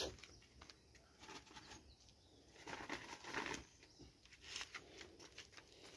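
Faint, scattered rustles and scuffs from someone crouching and handling something on dirt ground, with no voices.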